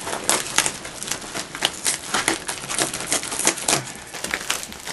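Insulated flexible air duct being cut with wire cutters: irregular sharp snips and clicks with crinkling of the plastic vapor-barrier jacket.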